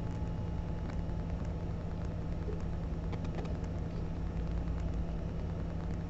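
Steady low electrical hum with a few faint clicks and rustles from hands working the hoses in the engine bay, about three seconds in.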